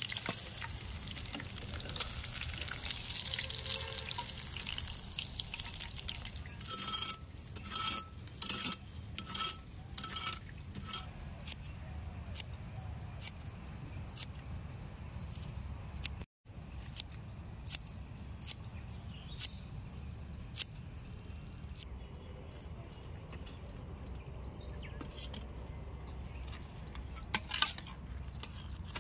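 Bangda (Indian mackerel) frying in hot oil in a pan, a steady sizzle. Then a run of about seven crisp snips from kitchen scissors cutting coriander leaves. Near the end, a few light clinks of a steel spatula against a steel plate.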